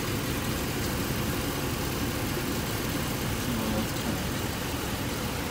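An engine idling steadily: a continuous low rumble under a steady hiss.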